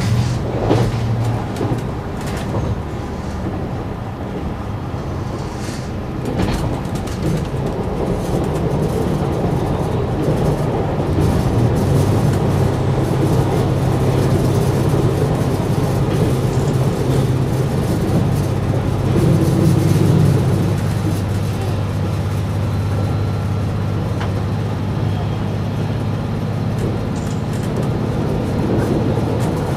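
KiHa 187 diesel railcar under way, heard from inside the cab: its diesel engine drones steadily over the running noise of wheels on rail. The engine sound grows louder about eleven seconds in.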